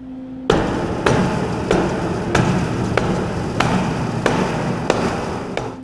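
Rubber mallet hammering steel ribs down against a mild-steel boat hull, to pull the hull bottom into its curve. About nine evenly spaced blows, roughly three every two seconds, start about half a second in over a loud continuous noise.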